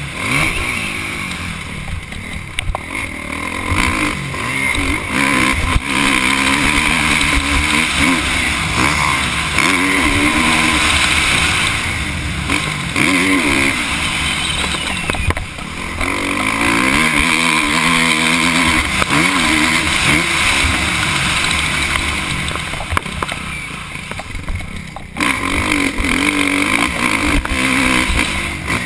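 Kawasaki KX450F four-stroke single-cylinder motocross engine revving hard, its pitch rising and falling again and again as the throttle is opened and closed. It eases off the throttle three times, about two seconds in, around the middle, and near the end.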